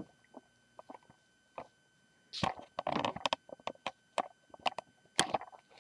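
A paper instruction booklet being handled and its pages turned: a few light clicks, then a burst of paper rustling a little over two seconds in, followed by more scattered ticks and rustles.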